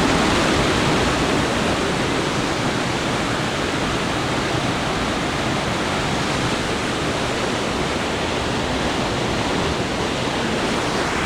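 Rain-swollen river water rushing steadily past a waterfall in full spate.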